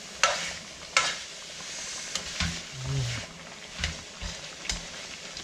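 Beef and vegetables sizzling in a hot wok while a utensil stirs them, with two sharp clacks against the pan about a quarter second and a second in, and softer scrapes and knocks after.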